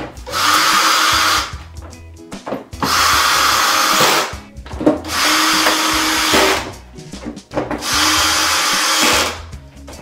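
Cordless drill/driver driving screws into a TV's back cover: four runs of about a second and a half each, with short pauses between them.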